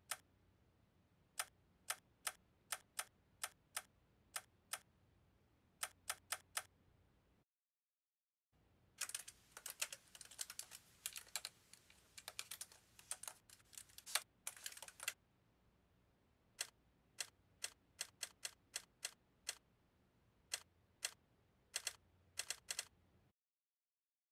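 Laptop keyboard keystrokes: single key presses spaced apart, then about nine seconds in a quick burst of rapid typing lasting some six seconds, then slower separate presses again, stopping shortly before the end.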